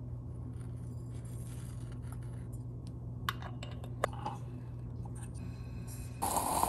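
A few faint metal clinks as a Bialetti Brikka moka pot's coffee basket and aluminium body are handled and fitted together, over a steady low hum. Near the end a louder steady rushing noise starts.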